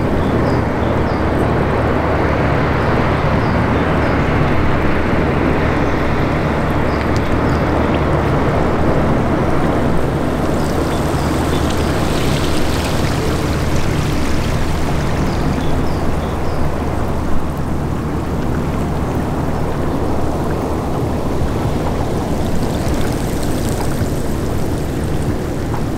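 Elbe river water rushing and surging back against the groyne bank after being drawn away, with a steady low hum underneath.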